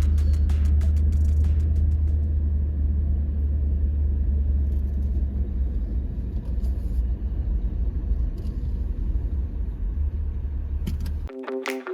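Steady low rumble with a few clicks in the first couple of seconds. Music comes in near the end.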